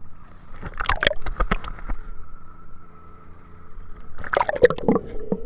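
Seawater splashing and gurgling around a camera held at the surface, in two bouts, about a second in and again near the end, over a steady low hum.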